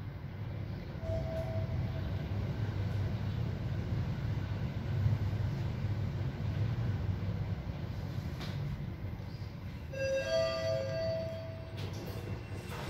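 Mitsubishi passenger elevator car travelling upward, a steady low hum of the ride. A short beep sounds about a second in, and a rising two-note arrival chime rings about ten seconds in, before the doors open.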